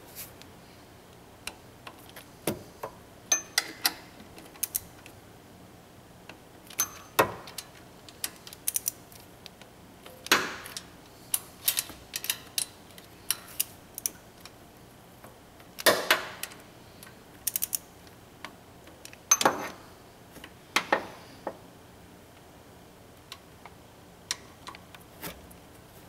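Hand tools working a water pump's bolts down to 78 inch-pounds, as a ratchet and a click-type torque wrench are used. The sound is irregular sharp clicks and metal clinks, some single and some in small clusters.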